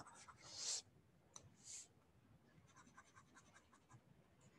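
Faint scratching and light ticks of a stylus writing on a pen tablet. A short rub comes early, then a quick run of tiny taps in the second half.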